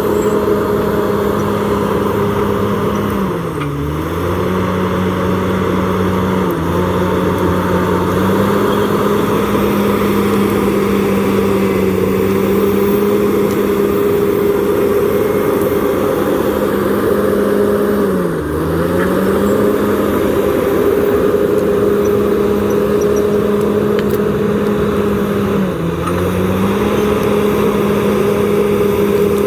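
Komatsu D68ESS bulldozer's diesel engine running steadily at high revs, its pitch dipping briefly three times and then recovering, as under load while pushing brush.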